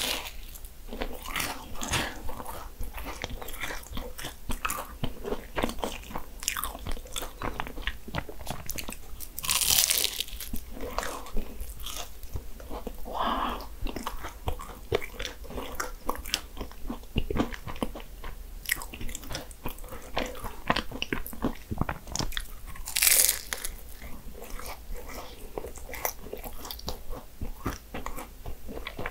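Biting into and chewing Portuguese egg tarts (nata), the flaky pastry shell crunching and crackling in many small clicks. There are louder bites about ten seconds in and again about two-thirds of the way through.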